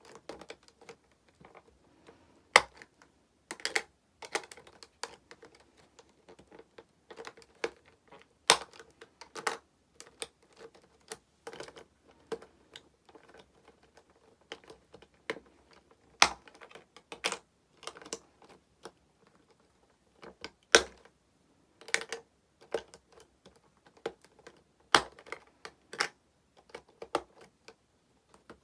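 Irregular sharp clicks and taps of hard plastic: small Prism Stone toy pieces and their plastic trunk case being handled, with a few louder knocks.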